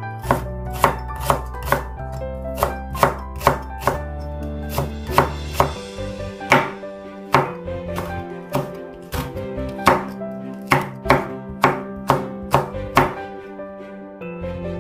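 Chef's knife slicing green onion and chili peppers on a bamboo cutting board, sharp chopping strokes at about two a second that stop near the end, over background music.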